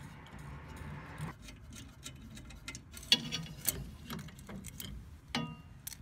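Scattered light clicks and taps of small brass gas fittings and metal parts being handled and unscrewed from a propane fridge burner, the sharpest click about three seconds in. A faint hiss runs through the first second or so.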